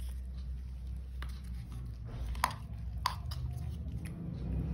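A cat eating wet cat food: small, scattered clicks of chewing and licking, two sharper ones about two and a half and three seconds in, over a low steady rumble that grows near the end.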